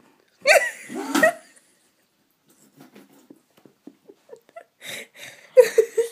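A person with her face down in a bowl making short vocal noises: a loud group of them about half a second in and another near the end, with faint clicks in between.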